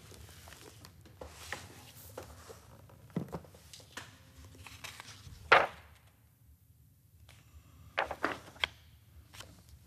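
Pages of a large bound book being turned and handled: scattered soft thuds and rustles, one louder swish of paper about halfway through, and a quick cluster of rustles near the end.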